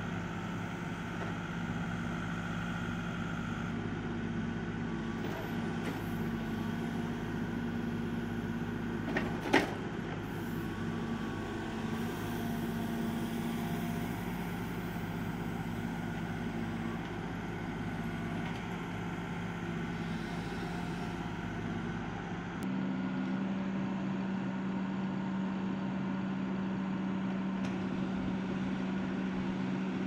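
Backhoe loader's diesel engine running steadily while working a stump crusher attachment, with one sharp crack about ten seconds in. A little past twenty seconds the engine note changes and settles onto a steadier, stronger tone.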